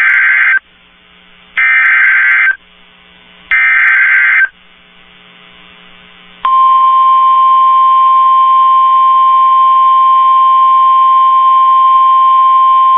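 Three one-second bursts of NOAA Weather Radio SAME digital header data, a harsh screeching buzz about a second apart, which encode the alert type and the counties covered. About six and a half seconds in, the 1050 Hz warning alarm tone starts: one steady, loud, unbroken tone, the signal that wakes weather radio receivers for a warning.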